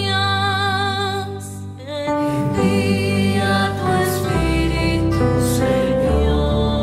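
Sung Easter Vigil psalm with accompaniment. A voice holds a long note with vibrato, then moves on to new notes after a short dip about two seconds in. A low bass comes in about four seconds in.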